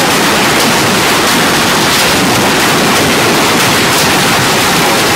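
Heavy hailstorm: hailstones coming down hard and hitting roofs and the ground, a dense continuous rush with scattered sharp hits.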